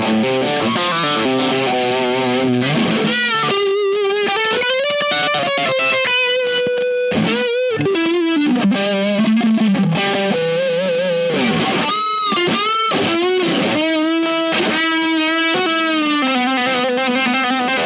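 Telecaster electric guitar played through the Keris overdrive/fuzz pedal into an amp's dirty channel: a distorted single-note lead line with string bends and vibrato on the held notes.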